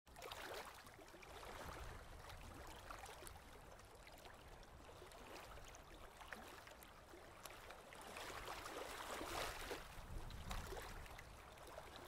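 Oil pastel rubbing across paper in faint, scratchy strokes that swell several times, most strongly in the later part.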